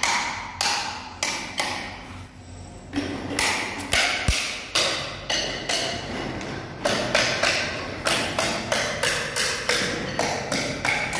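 Steady hammering: sharp, ringing blows about two to three a second, with a short break about two seconds in.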